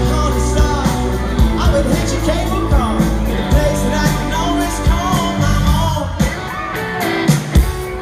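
Live pop-rock band playing with a male lead singer, heard from within the audience at a concert.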